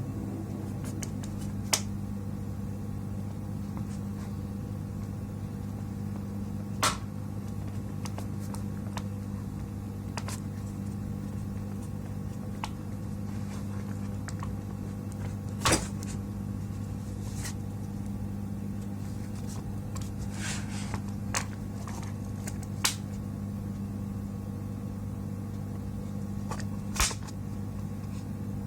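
Steady low electrical hum from the workbench, with occasional sharp clicks and taps of tools and plastic parts as a car head unit is worked apart by hand, about half a dozen in all.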